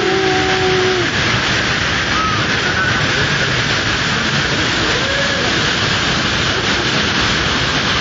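Steady rush of a waterfall's water pouring over rocks, with a few brief shouts from people in the water; one held call ends about a second in.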